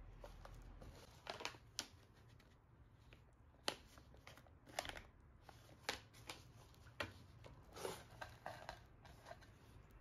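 Quiet, scattered rustling, taps and a few sharper clicks from handling a small cardboard box with shredded paper filler and taking paper and a boxed product out of it.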